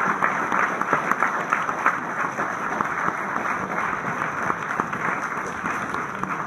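Audience applauding, a dense clatter of many hands clapping that eases off slightly near the end.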